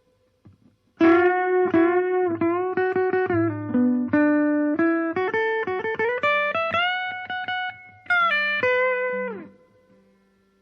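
Electric guitar played through an amplifier with a single-transistor LPB-style clean boost switched in: a short lead phrase with several string bends, starting about a second in, a brief break near the end, then a last phrase whose final note bends down and fades out.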